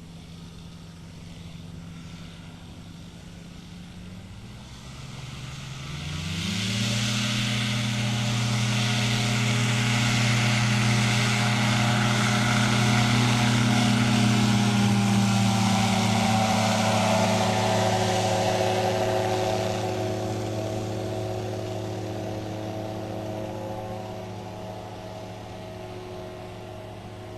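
Titan Tornado light aircraft's propeller engine, heard from the ground. The engine pitch rises as the throttle opens about five seconds in, then the sound grows louder as the plane comes closer, peaks mid-way and slowly fades as it draws away.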